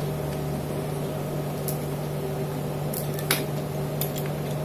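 A steady low hum, with a few short light clicks and taps scattered through it as the sliding part of a homemade mini lathe is moved up and down.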